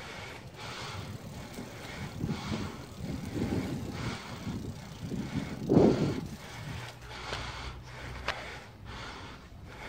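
Wind buffeting the microphone of a camera on a moving bicycle, with a low, uneven rumble and a stronger gust about six seconds in. Light clicks and rattles from the ride come through, and a low steady hum runs from about seven to nine seconds in.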